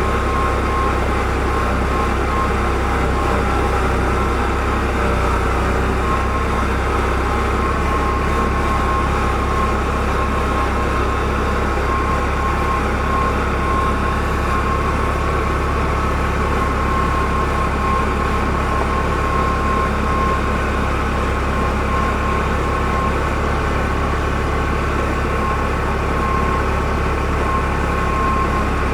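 Heavy engine of a farm machine running steadily at an even speed, with a deep hum and a steady high whine over it.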